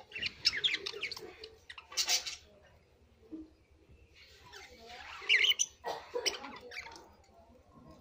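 Budgerigars chirping and chattering in short bursts of quick, high chirps and squawks, with a quieter spell in the middle.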